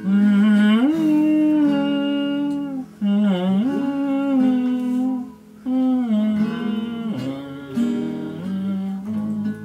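A man singing the melody without words, humming in three long drawn-out phrases, over a strummed acoustic guitar.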